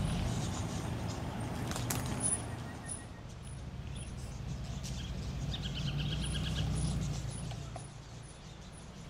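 A four-wheel drive's engine running low and slow as the vehicle crawls over a rocky creek-crossing track, swelling a little about six seconds in. Birds chirp over it, with a short rapid trill about six seconds in.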